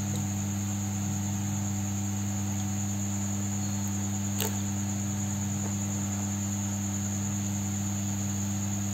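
A steady low hum with a constant high-pitched whine above it, unchanging throughout, and one sharp click about halfway through.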